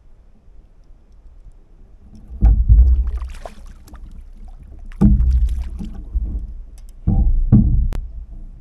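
Three loud, low thumps roughly two and a half seconds apart, each trailing off in a rumble over about a second.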